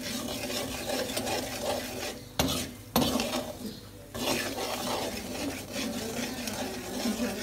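Metal spoon stirring and scraping semolina as it roasts in ghee in an aluminium pan, with a light sizzle: the first stage of suji halwa. Two sharp knocks, about half a second apart, come a little over two seconds in.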